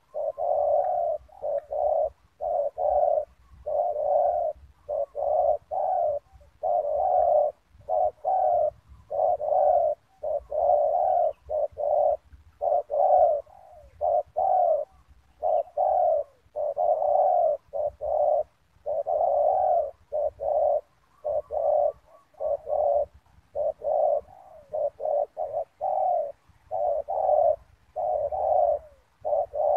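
Spotted dove cooing over and over: a long series of short coo notes in quick runs with brief pauses between them.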